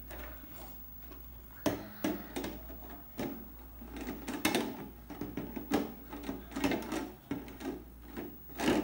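Thin clear plastic cake-dome lid being handled and set over a steel tray: irregular clicks, knocks and crinkles of the plastic against the metal rim. Louder knocks come about two seconds in, in the middle, and near the end.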